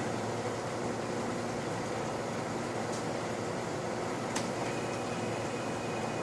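Steady mechanical hum with hiss, like equipment or ventilation running, with a sharp click about four seconds in and a faint high steady tone after it.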